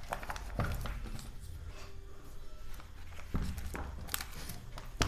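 Quiet handling noise: a hand moving over a paper textbook page, with soft rustles and a few light clicks over a low rumble.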